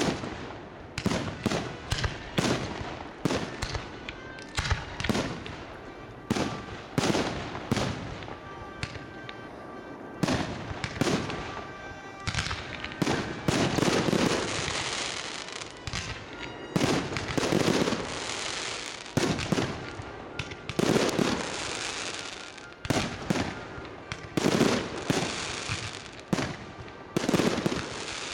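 Fireworks display: aerial shells bursting in a rapid, uneven series of bangs, often one or two a second. Some bangs are followed by a longer rush of noise.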